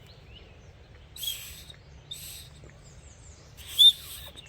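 The Leatherman Signal's built-in emergency whistle blown in three short puffs, mostly breathy air with a thin high tone. Only the third blow, near the end, briefly sounds off as a clearer shrill whistle; it is a weak whistle that needs holding just right.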